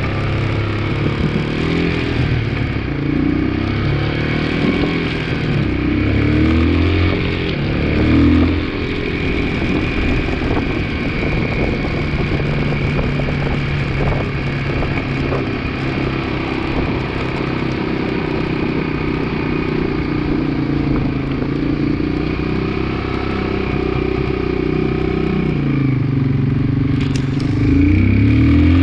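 2002 Yamaha 225 motorcycle engine running mostly at a steady idle, its revs rising and falling a few times, with clattering knocks throughout: the clunking from the clutch area that is being tracked down.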